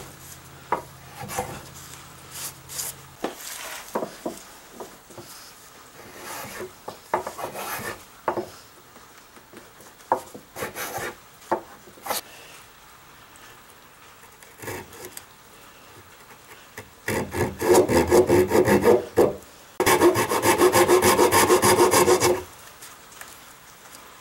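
A hand tool scraping and rasping across wood as an inlaid maple spline is trimmed flush with the foot of a table leg. Scattered single strokes come first, then two loud runs of quick, even strokes near the end.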